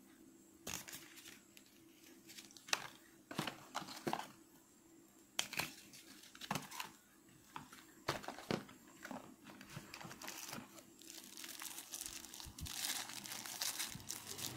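Plastic packaging and paper leaflets being handled and crinkled: scattered crackles and rustles, busier near the end.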